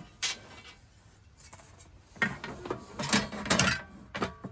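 Objects being handled: a knock near the start, then a run of clattering knocks and rubbing sounds in the second half.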